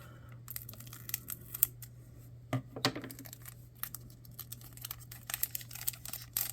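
Trading cards being handled and flipped through: a scatter of soft slides, rustles and light clicks over a steady low hum.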